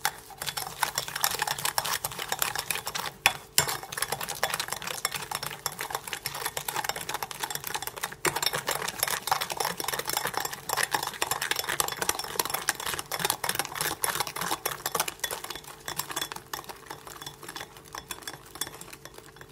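Hand whisk beating egg and sugar in a glass bowl: a fast, continuous run of clicks and scrapes as the whisk wires hit the glass, easing off near the end.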